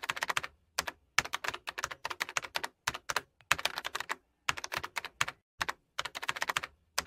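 Computer-keyboard typing sound effect: quick runs of key clicks in short bursts, with brief gaps of complete silence between the runs, as text types onto the screen.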